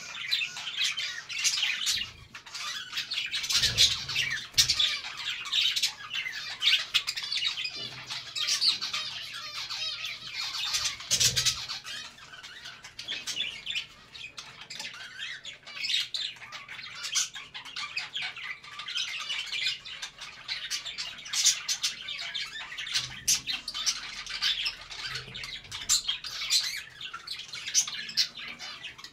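A group of budgerigars chattering and chirping without a break, a dense run of quick high warbles and calls.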